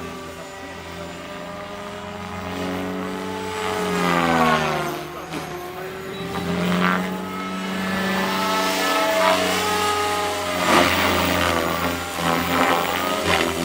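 Goblin 500 electric RC helicopter flying, its motor and rotor whine gliding down and up in pitch several times.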